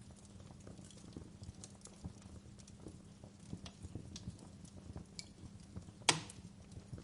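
Wood campfire crackling, with irregular small pops and snaps over a low steady rumble of the burning fire, and one loud sharp pop about six seconds in.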